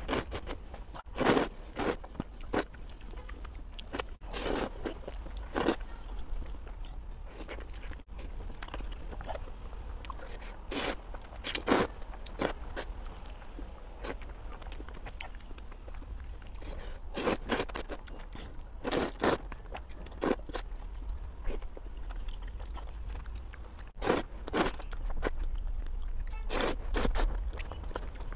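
A person slurping up wheat noodles and chewing them, close to the microphone. Short, loud slurps come every second or few seconds, with quieter chewing between.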